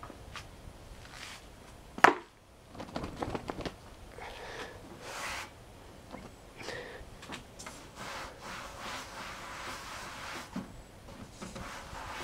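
A brush scrubbing the dirty case of a Packard Bell Legend 386X computer, in rough strokes of scraping. A single sharp knock about two seconds in is the loudest sound.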